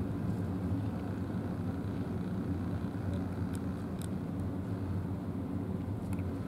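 Steady low engine drone with no change in pitch or level. A few faint high ticks sound over it.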